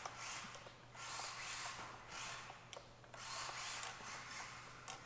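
Kyosho Mini-Z MA-020 drift car running: its small electric motor whirs in surges as the throttle is applied and released, rising and falling about once a second, with its hard plastic drift tyres sliding on the foam track.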